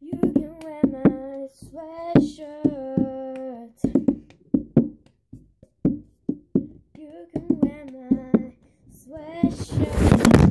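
A girl singing a tune in long held notes while keeping the cup-song rhythm: hand claps and a plastic cup tapped and knocked down on a table. Near the end a loud rustling noise takes over.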